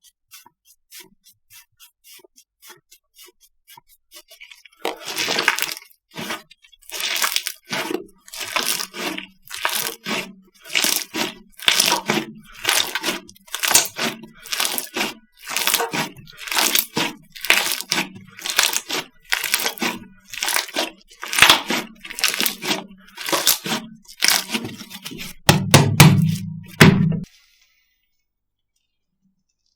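Slime being pressed and squeezed by hand, crackling and popping with each press. The strokes come about twice a second after a few soft clicks, then stop abruptly near the end.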